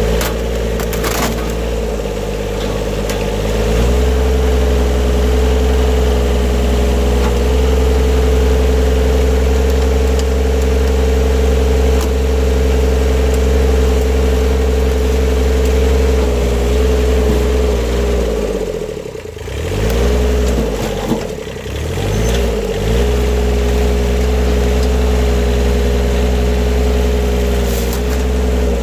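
Old compact tractor's engine running hard as its hydraulic loader bucket presses down on a flat-screen TV. The engine note rises about four seconds in, sags and swings in pitch about two-thirds of the way through, then settles back to a steady run.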